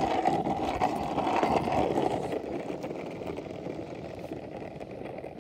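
Longboard wheels rolling over rough asphalt: a steady, grainy rumble that grows quieter toward the end.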